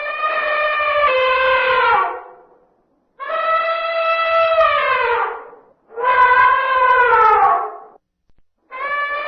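Male African elephant trumpeting in a series of loud, brassy calls, each about two seconds long. One call is already sounding at the start, two more follow, and a fourth begins near the end; the calls drop in pitch as they die away.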